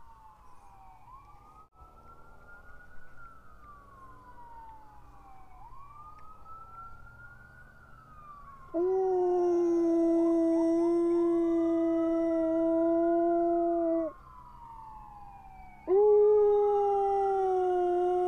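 Siberian husky howling along with a siren. A faint siren wails up and down in slow sweeps throughout, and the husky gives two long, steady howls: the first starts about nine seconds in and lasts about five seconds, and the second starts near the end.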